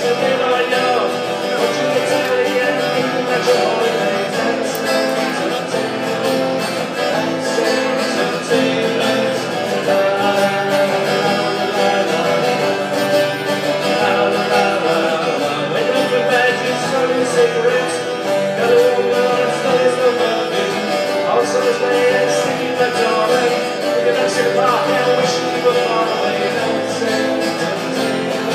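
Two acoustic guitars playing a song together.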